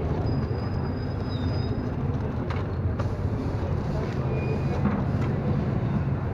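Street-food stall ambience: a steady low rumble of traffic with background voices and a few short clicks.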